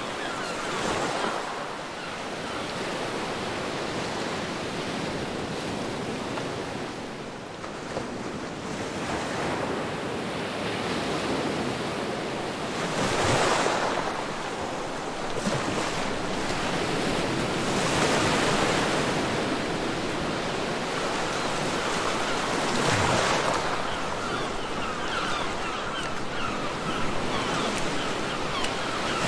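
Ocean waves breaking on a beach: a continuous wash of surf that swells louder with a breaking wave every five seconds or so.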